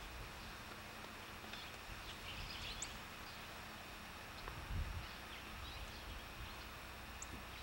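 Faint outdoor ambience: scattered short bird chirps over a low, uneven rumble, with a soft bump about five seconds in.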